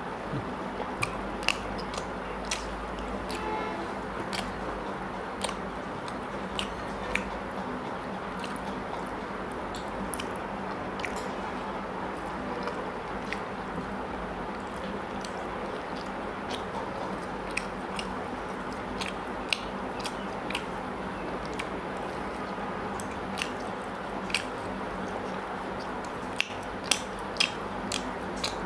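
Close-miked eating sounds of a man eating mutton curry and rice by hand: chewing with frequent short, wet mouth clicks and smacks scattered throughout, more of them near the end, over a steady background hiss.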